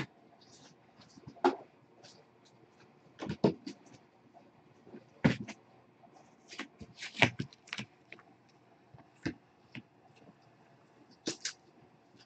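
Kittens eating from food bowls on a hard floor: irregular short clicks, smacks and knocks of mouths and bowls, a few louder ones about five and seven seconds in.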